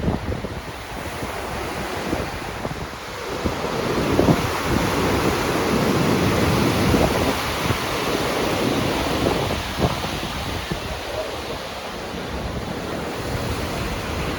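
Wind buffeting the microphone over a steady rush of sea water, swelling louder about four seconds in and easing off again near the end.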